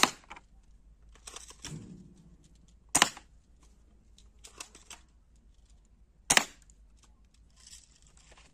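Toy MP40 BB gun firing three single shots about three seconds apart, each a sharp, short crack, with fainter plastic clicks between shots.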